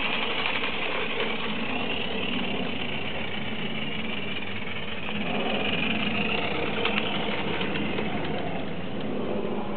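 Accucraft Climax model steam locomotive running along garden-railway track, a steady noisy running sound with a few faint ticks about seven seconds in.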